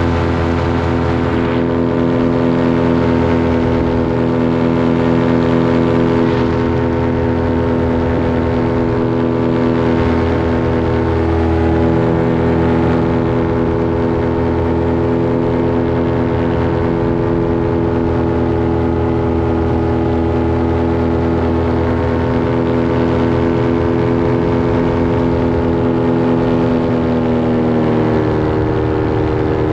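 Engine and propeller of a powered paraglider running steadily in flight, a constant drone. Near the end the engine speed dips briefly and then climbs back.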